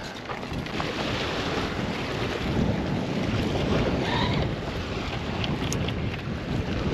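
Wind buffeting the microphone: a steady, rushing noise.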